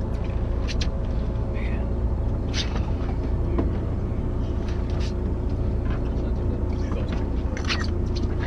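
Fishing boat's engine running with a steady low rumble, with scattered short clicks and knocks of gear and handling on the deck.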